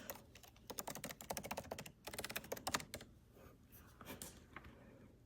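Typing on a computer keyboard: two quick runs of faint key clicks, then a few scattered taps.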